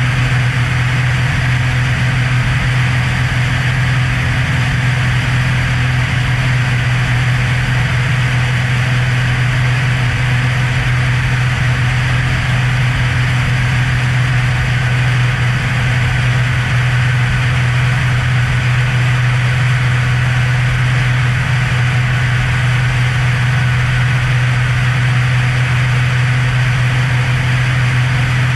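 Cessna Hawk XP's six-cylinder Continental engine and propeller droning steadily in flight, holding one even pitch and level throughout.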